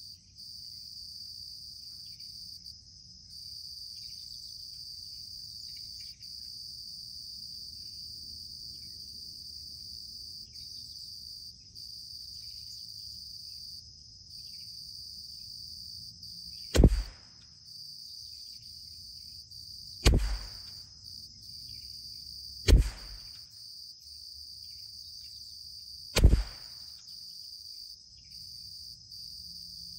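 Four .22 LR rifle shots, Eley Contact rounds from a CZ 457 MTR bolt-action. The first comes about halfway through, then one every three seconds or so, over a steady high drone of insects.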